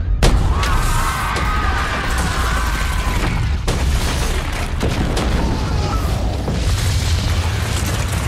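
Huge wildfire explosion: a sudden blast about a quarter second in, then a long, deep rolling rumble full of crackling and debris that keeps going.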